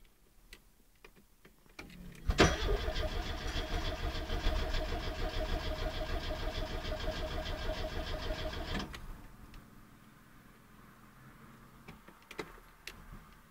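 Starter cranking a 1980 Porsche 924's four-cylinder engine for about six seconds in an even, rhythmic churn; the engine never fires and the cranking cuts off abruptly, a failed start. A few light clicks follow near the end.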